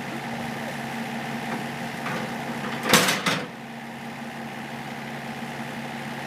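Excavator's diesel engine running steadily, with a short loud burst of noise about three seconds in.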